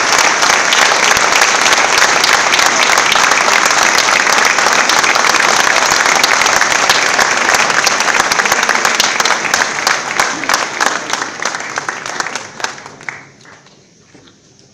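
Audience applauding, dense and steady at first, thinning into scattered claps after about ten seconds and dying away near the end.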